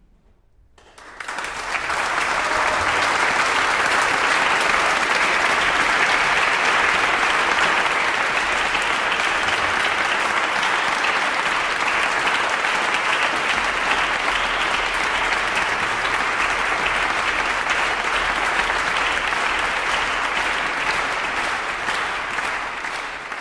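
Audience applauding. The clapping rises out of near silence about a second in, holds steady, and begins to fade near the end.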